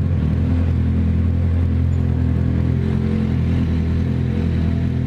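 Yamaha XJ6 motorcycle's inline-four engine running at steady, constant revs.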